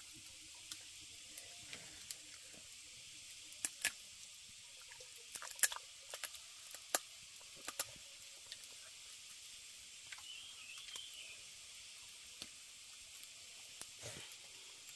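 Quiet outdoor background with a steady high hiss, broken by scattered sharp clicks and taps, the loudest about five and a half seconds in, and a short high chirp around ten seconds in.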